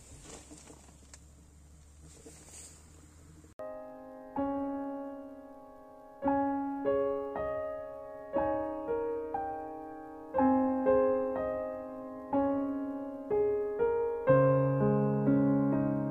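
Faint crackling and ticking of a wood fire burning in a small tent stove. About three and a half seconds in, solo piano music begins and plays on, with single notes and chords struck and left to ring.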